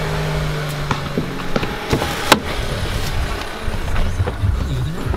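Getting into a Range Rover: a steady low hum from the idling car at first, then clicks and knocks of the door and someone climbing in, with one sharp clunk about two seconds in, followed by low rumbling handling noise.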